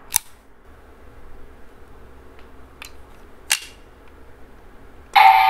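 Sharp plastic clicks from a DX Hazard Trigger toy being handled: a loud click just after the start, a faint one near three seconds and another loud one about half a second later. Just before the end a loud electronic sound with tones cuts in.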